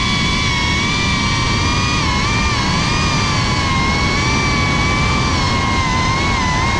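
Motors and propellers of a Geprc Cinelog 35 FPV cinewhoop drone whining in steady cruising flight, the pitch wavering slightly as the throttle shifts, over a low rushing of air.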